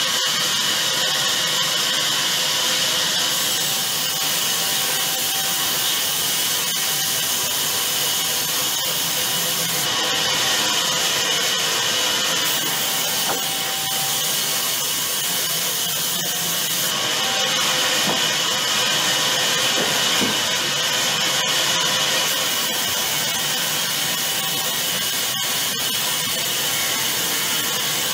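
Large sawmill band saw running steadily while a log is pushed through the blade by hand, the cut giving a constant, high hissing noise.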